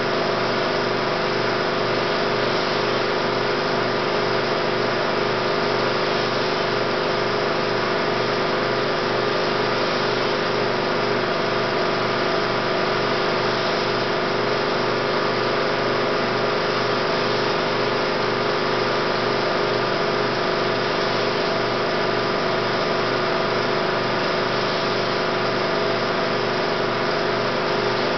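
16mm film projector running: a steady mechanical whir with a constant hum and a faint regular flutter, unchanged throughout.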